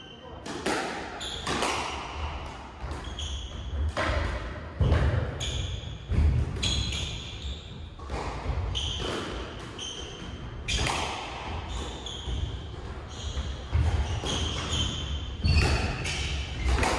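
Squash rally: the ball cracking off rackets and the walls every second or so, ringing in the enclosed court, with short high squeaks of shoes on the wooden floor and footfalls between the shots.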